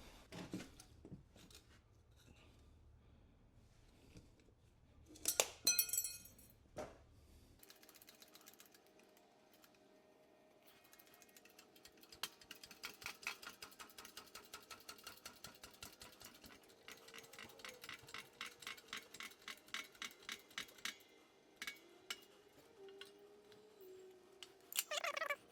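Metal hand tools and parts clinking, with a louder clatter about five seconds in, then a long run of rapid light clicks for about ten seconds while the clamps are being worked out of the wheel bearing assembly.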